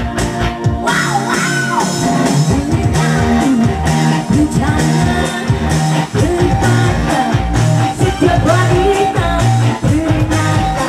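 Music: a song with a singing voice, guitar and a steady beat.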